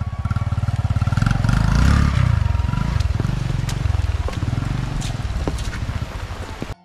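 Small motorcycle engine running under throttle as the bike rides off along a muddy path, loudest about two seconds in and then fading as it pulls away.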